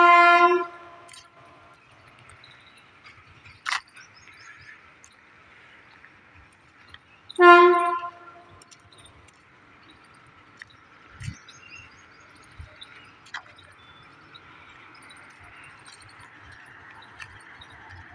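Two short blasts of an approaching WAP-7 electric locomotive's horn, about seven and a half seconds apart, each well under a second long.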